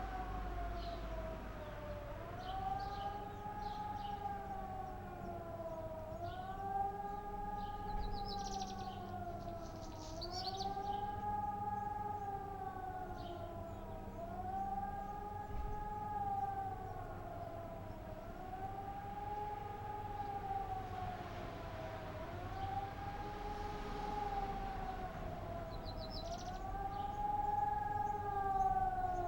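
Civil defence sirens sounding the rising-and-falling warning wail in a siren test, swelling up and sinking back about every four seconds.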